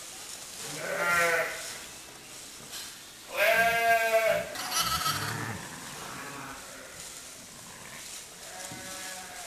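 Sheep bleating: several calls. The loudest and longest comes about three and a half seconds in, with shorter, fainter bleats about a second in, just after it, and near the end.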